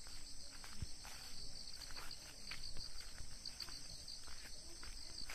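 Steady high-pitched chorus of insects, crickets among them, with scattered light footsteps on a grassy footpath.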